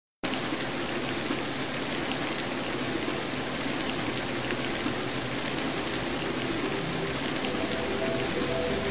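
Steady rain, an even hiss with scattered drop ticks, used as the intro of a hip-hop track; a faint melody of held notes comes in about seven and a half seconds in.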